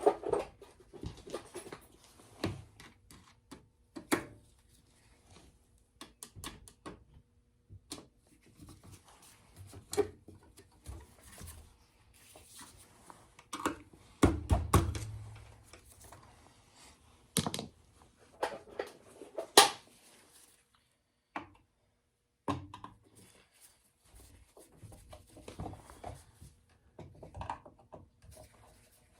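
Scattered sharp clicks, knocks and metal clatter of hand tools and parts as the ignition transformer is worked off an oil burner, with short quiet gaps between and one heavier thud about halfway through. The burner is not running.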